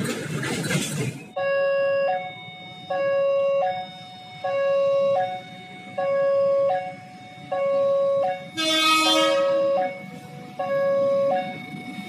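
Electronic level-crossing warning alarm sounding a repeating two-tone chime, about once every second and a half, signalling an approaching train. About nine seconds in, a brief, brighter tone cuts across it.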